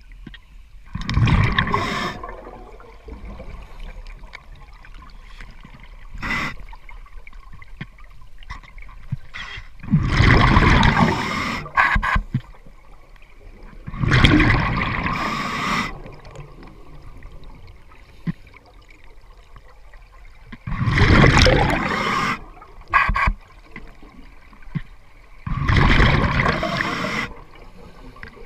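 Scuba diver's exhaled breath bursting out of the regulator as bubbles, heard underwater: five rushing bursts of bubbles, each one to two seconds long and several seconds apart, with a low hiss between breaths.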